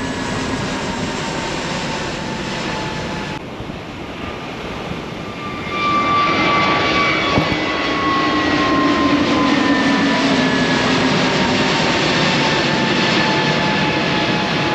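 Airbus A320neo's CFM LEAP-1A turbofan engines at takeoff power, a steady jet roar with whine tones slowly falling in pitch. It grows louder about six seconds in.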